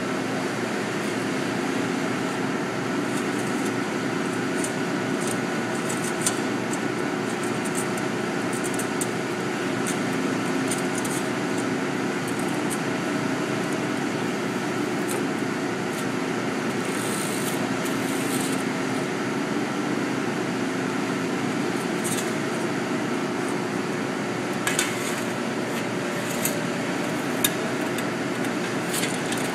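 Steady fan-like machine hum with a few scattered light metallic clicks and clinks, as of small hand tools and metal parts being handled.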